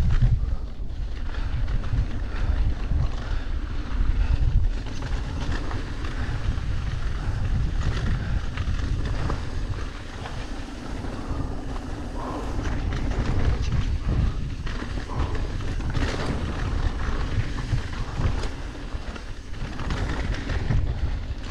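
Wind buffeting an action-camera microphone on a mountain bike descending a dirt trail, over the rumble of knobby tyres rolling on dry, loose dirt. A few short knocks and clatters from the bike come through as it goes over bumps.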